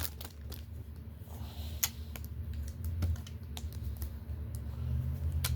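Irregular sharp clicks and taps of hard plastic being handled: a pair of plastic fish grippers being picked up and worked.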